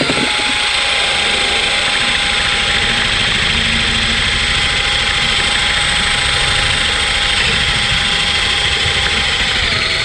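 Handheld power tool running steadily under load while cleaning carbon off the valve seats and combustion area of a Tecumseh flathead lawnmower engine, then winding down with a falling pitch and stopping near the end.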